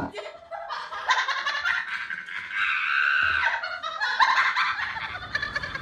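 A person laughing in high-pitched, repeated bursts.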